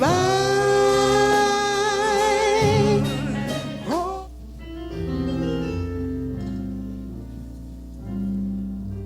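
A solo voice holds one long note with vibrato over keyboard accompaniment, ending with a quick upward slide about four seconds in; after that the piano or organ chords carry on alone, softer.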